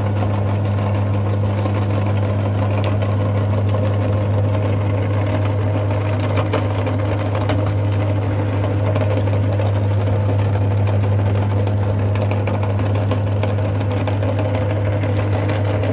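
Electric meat grinder running steadily with a strong low motor hum, switched on just before.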